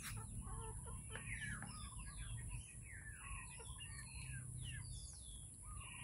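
Native chickens clucking while they feed, with many short high chirping calls running through.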